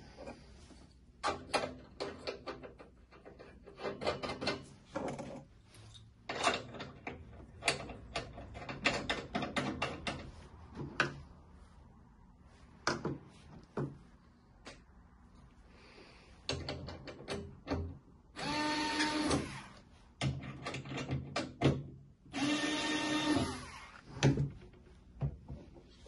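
Knocks and clicks of metal parts being handled as chrome feet are fitted to a stainless-steel appliance base, then a small cordless electric screwdriver running twice, each time for about a second and a half, in the second half.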